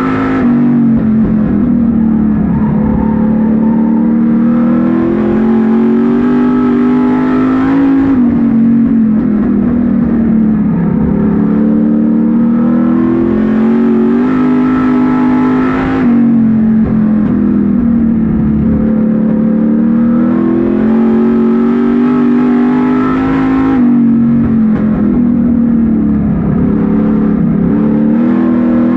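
Street stock race car engine heard from inside the cockpit, running hard around a short oval. The pitch climbs steadily down each straight, peaks, then drops as the driver lifts for a turn. This repeats about every eight seconds.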